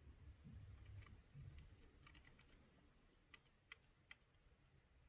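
Near silence with scattered faint light clicks and taps of small screws and metal hop-up parts being handled and fitted.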